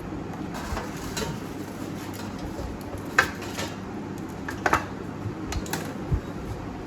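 Kitchen dishes and utensils clinking and knocking, a few sharp clinks: the loudest about three seconds in and a quick double clink near five seconds in.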